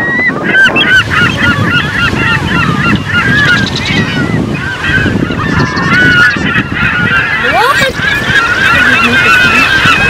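A flock of gulls calling, many short squawks overlapping continuously, over a steady low rumble.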